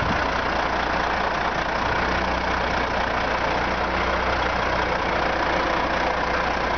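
Heavy semi-tractor's diesel engine idling steadily, an even low hum with no change in speed.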